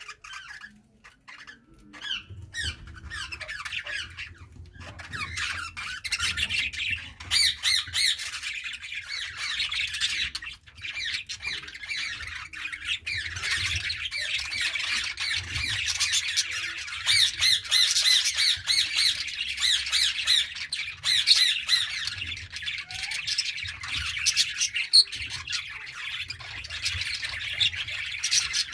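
A flock of budgerigars chattering continuously: dense, rapid chirps, squawks and warbles overlapping, starting sparse and filling in within the first few seconds.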